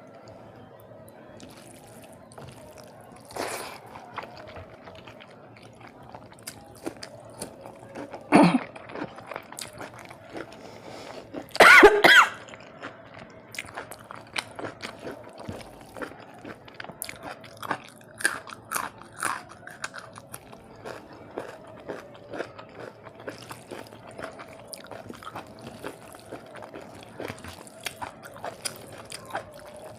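Close-miked eating: chewing and crunching of crispy fried food and rice, with many small wet mouth clicks. Two louder short throat sounds, like a cough, break in about 8 s in and around 12 s.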